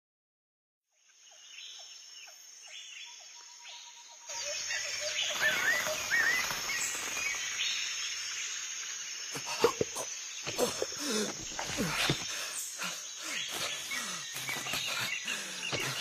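Nature ambience of insects droning, with chirping bird calls and other animal calls over it, starting after a second of silence and growing louder about four seconds in.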